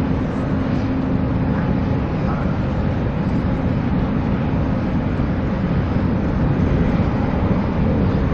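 A steady low rumble with a faint hiss above it and no separate events.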